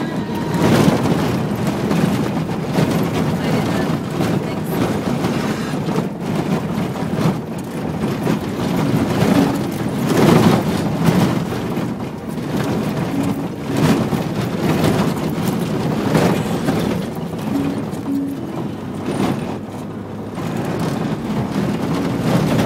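Cabin noise of a Toyota Land Cruiser driving over a rough desert dirt track: engine and tyre noise with repeated thumps and rattles as the body jolts over bumps.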